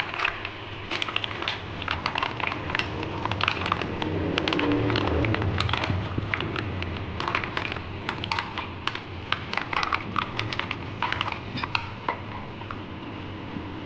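Green mussel shells clicking and clattering against each other and a metal spoon as they are stirred in a pot: many quick, irregular clicks, with a faint steady hum underneath.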